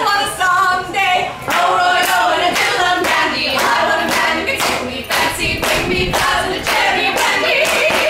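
A group of women singing a cappella while clapping their hands to a steady beat of about two claps a second.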